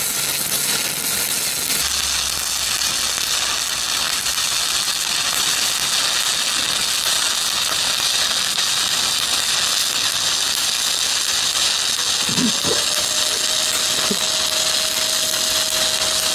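Stick (shielded metal arc) welding with a 1/8-inch 7018 electrode: the arc sizzles and crackles steadily as a fill bead is run along the bottom toe of a horizontal groove joint.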